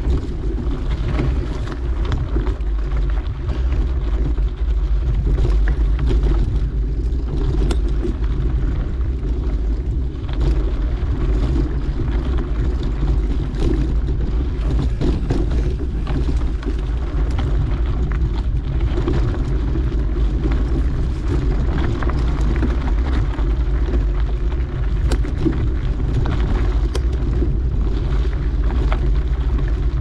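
Mountain bike rolling along a dirt trail: a steady low rumble of tyres and wind on the riding camera's microphone, with occasional sharp clicks and rattles from the bike over rough ground.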